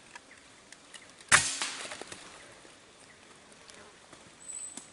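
A single air rifle shot: one sharp crack with a short fading tail.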